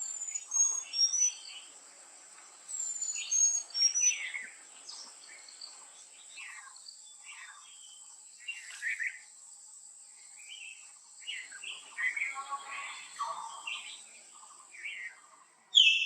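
Wild birds calling and chirping in a mix of short notes. Twice in the first four seconds there is a run of high whistled notes stepping down in pitch, and a loud call comes right at the end. A steady high-pitched whine runs underneath.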